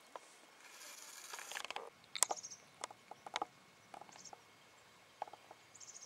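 Irregular footsteps crunching and scuffing on a stony dirt trail, with a longer scrape about a second in. A few short high chirps are heard among the steps.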